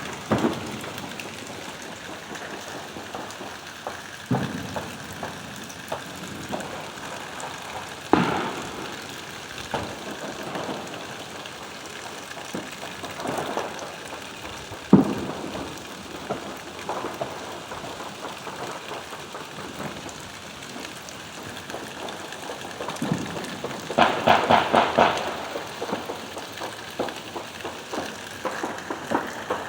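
Steady rain falling, with distant fireworks and gunshots going off across the neighbourhood. Single bangs come every few seconds, the loudest about halfway through, and a fast string of pops like automatic fire or firecrackers comes about three quarters of the way in.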